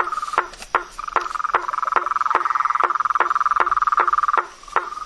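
Frogs calling: a continuous high, rapid trill with a steady series of sharp clicks, about two and a half a second. The trill drops out briefly twice.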